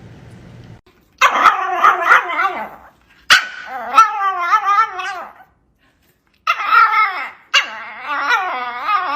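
A dog vocalizing in three long calls that waver up and down in pitch, each lasting one to two seconds, with short silences between them.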